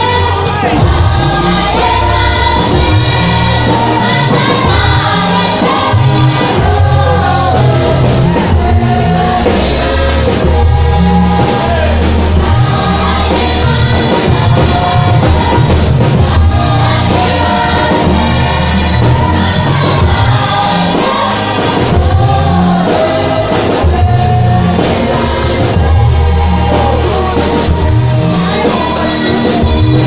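Youth church choir singing a gospel song into microphones over amplified accompaniment, with a heavy bass line moving beneath the voices.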